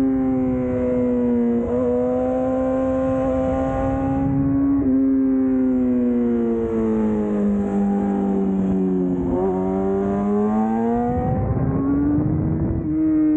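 Yamaha R6 inline-four engine running under way, its pitch moving with throttle and gear changes. It makes short shifts in pitch, then sinks steadily for about four seconds as the bike slows, then climbs again as it accelerates.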